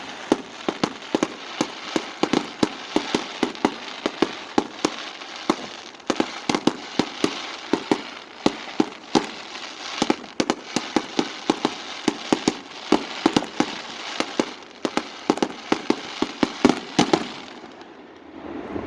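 Fireworks exploding high overhead: a dense, irregular barrage of sharp bangs, several a second, with crackle between them, dying away near the end.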